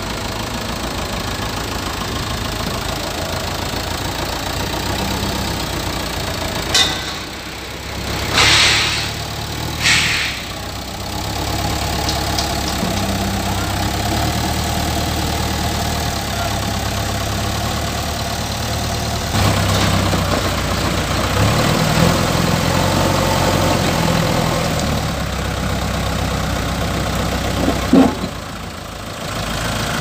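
JCB backhoe loader's diesel engine running under load as the machine moves a slung concrete pipe. The engine note shifts and grows louder about two-thirds of the way through. A few short hissing bursts come around eight to ten seconds in.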